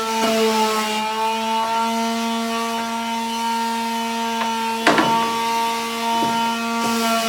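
Electric sander running with a steady motor hum and a hiss of abrasive on wood as the skateboard deck's edges are rounded over, with a sharp knock about five seconds in.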